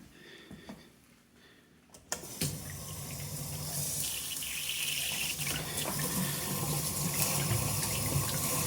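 Kitchen tap turned on about two seconds in, water running into the sink, the rush growing steadily louder.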